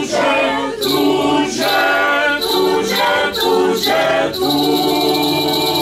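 Mixed group of women's, children's and a man's voices singing a Ukrainian Christmas carol in harmony, with several short sung phrases followed by one long held chord from about two thirds of the way in.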